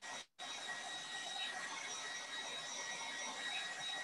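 Blow dryer running steadily, drying a fresh coat of chalk paint: a constant airy hiss with a thin high motor whine. The sound cuts out completely for a moment just after the start.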